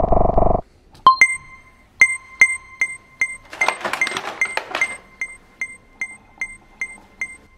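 A growl-like sound effect ends just after the start. Then short electronic chime pings repeat evenly, about two and a half a second. Plastic packaging rustles in the middle as a figure is taken from its clear blister tray.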